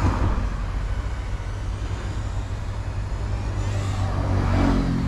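Road traffic: a steady low rumble of passing vehicles, with one vehicle's engine growing louder and passing about four to five seconds in.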